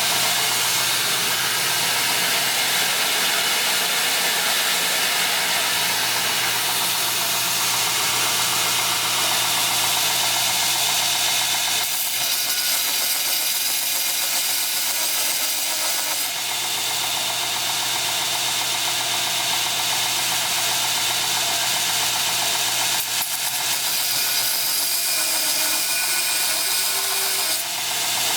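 Homemade 2x72-inch belt grinder running steadily with an 80-grit belt on it, motor and belt noise holding even with a few brief dips; the belt is tracking true after adjustment.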